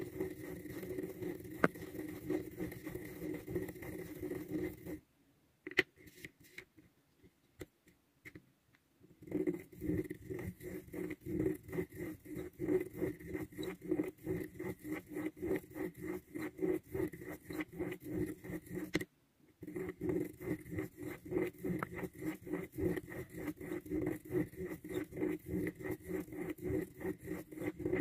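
A pen tip pushing a plastic Spirograph-style gear wheel around the inside of a toothed plastic ring on paper, making a rapid rhythmic scratching and clicking as it goes round. It stops for about four seconds near the start and again briefly about two-thirds through.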